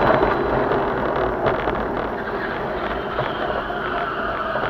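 Steady road and engine noise of a moving car, with some wind noise.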